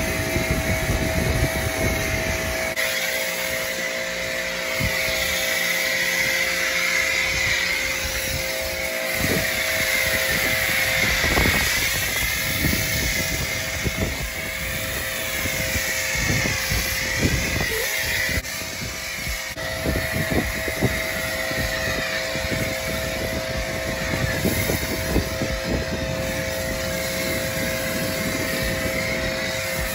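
Pressure washer running with a foam cannon on its gun, spraying a steady stream of soap foam onto a truck's body, over a steady whine from the machine that drops out briefly now and then.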